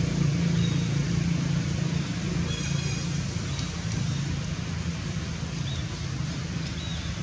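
Low steady mechanical hum, like a distant engine or traffic, easing off slightly after the first second, with a few faint short high chirps over it.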